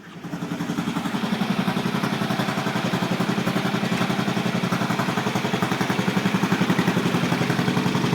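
Craftsman LT4000 lawn tractor engine starting up: it catches within the first second on quick cranking, then runs steadily with a rapid, even pulse. The quick cranking comes from a freshly repaired battery cable connector, which the owner takes for the cause of the earlier slow cranking.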